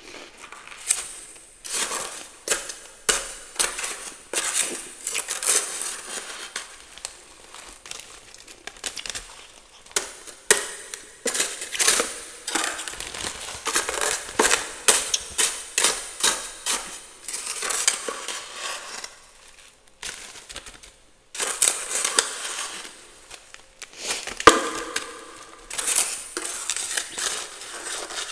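Freezer frost crunching in many quick, irregular crunches, with a short lull about twenty seconds in.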